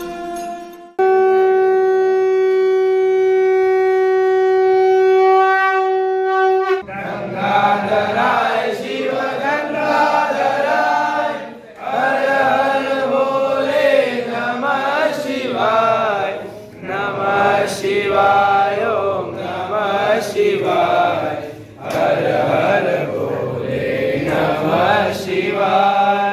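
A conch shell (shankh) blown in one long steady note lasting about six seconds, then voices chanting in phrases with short pauses, typical of the start of a Hindu abhishek ritual.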